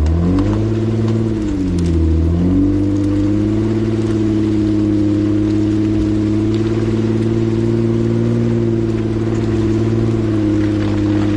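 Jeep engine revving up, dipping and climbing again about two seconds in, then holding steady revs under load while it tows a stuck delivery van up a steep muddy hill on a kinetic rope.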